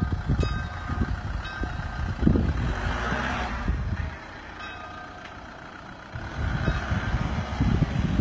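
A church bell ringing in repeated strokes, each one ringing on with several steady tones, over a low rumble of wind on the microphone.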